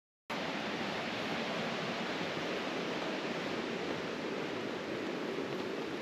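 Steady rush of running water, an even hiss with no breaks.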